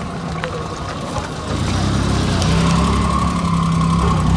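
A motor vehicle's engine running steadily close by, with a low, even hum that grows louder about a second and a half in.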